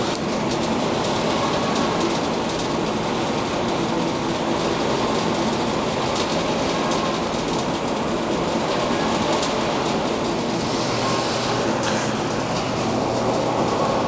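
Electric-motor-driven centrifugal squirrel-cage blower running steadily on a variable frequency drive: a broad rush of air over a low hum, with a steady high-pitched whine.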